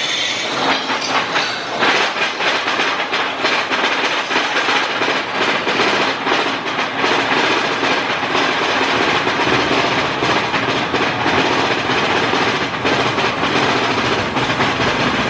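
Big Thunder Mountain mine-train roller coaster running along its track: a steady, loud clattering rattle of wheels on rails.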